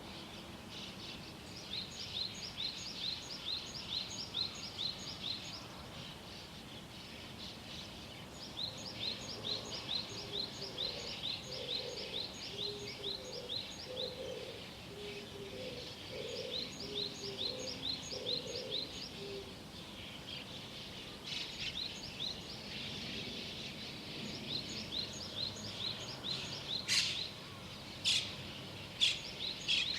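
Small songbirds singing at dawn: repeated phrases of quick, high, down-slurred chirps, several a second, each phrase lasting a few seconds with short pauses between. Through the middle a lower, hoarser repeated note joins in, and near the end a few sharp, louder calls stand out.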